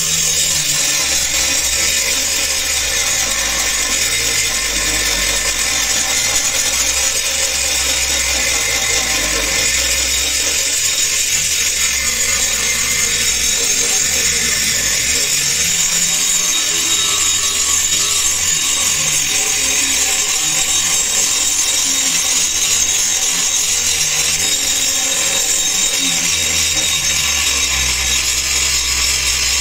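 Angle grinder running steadily, its disc grinding rust and pitting off the steel blade of an old meat cleaver.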